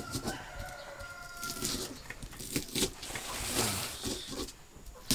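A rooster crowing once, a long held call of about a second and a half, over the knocking and grinding of a stone pestle crushing spices in a stone mortar and a knife slicing on a wooden cutting board.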